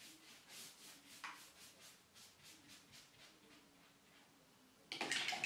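Paintbrush stroking a watercolour wash across paper drawn with wax crayon and oil pastel: faint, rhythmic brush strokes, about three a second. A short, louder rustle follows near the end.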